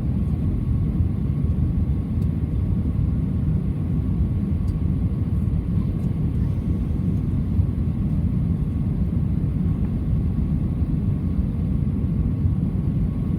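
Steady low rumble of an Airbus A320 cabin, engine and airflow noise, with a faint steady whine above it.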